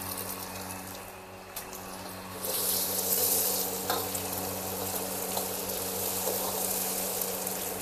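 Egg cracked into hot oil in a wok with fried anchovies and garlic, frying. The sizzle jumps up sharply about two and a half seconds in and then carries on steadily.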